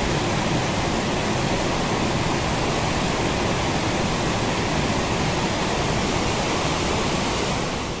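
Mountain stream flowing over a shallow rocky bed: a steady rush of water that fades out near the end.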